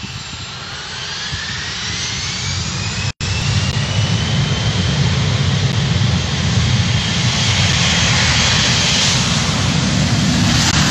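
Jet airliner's engines spooling up for take-off: a whine that climbs in pitch over the first few seconds above a growing engine noise, which then holds loud and steady.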